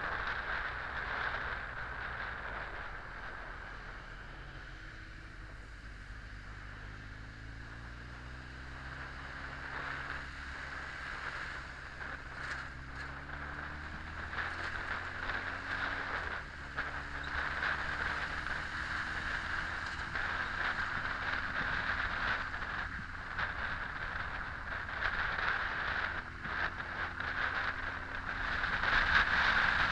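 Honda X4 motorcycle's 1284 cc inline-four engine running on the move, its pitch climbing several times as the bike accelerates, with wind noise on the bike-mounted camera's microphone that grows louder near the end.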